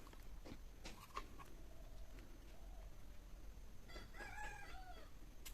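A rooster crowing faintly in the background: one crow about four seconds in, with a few soft clicks earlier.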